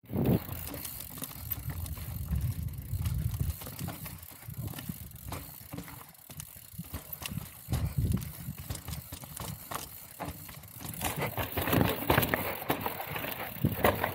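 Full-suspension mountain bike being ridden down a trail: tyre noise on dirt with the chain and frame rattling over bumps, getting louder over the last few seconds.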